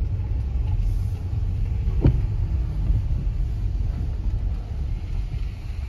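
Steady low rumble of a car driving slowly, heard from inside the cabin, with a single sharp thump about two seconds in.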